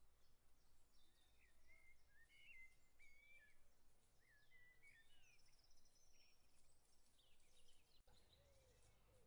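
Near silence, with faint bird calls: short whistled phrases in the first half and a high trill around the middle.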